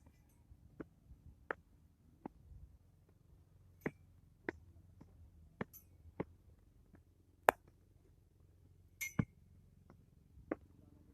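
A series of sharp, irregular clicks and clinks, roughly one a second, with a louder one about two-thirds of the way through and a quick double click shortly after.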